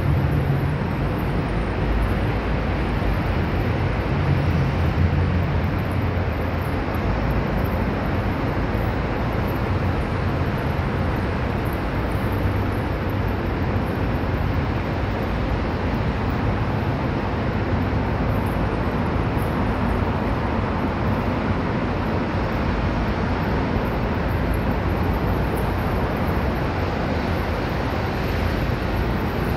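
Steady roar of distant traffic: an even hiss with a low rumble underneath, unchanging throughout.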